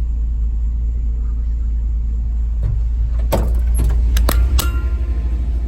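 Steady low road rumble of a moving vehicle heard from inside the cab, with several sharp clicks and knocks in the second half.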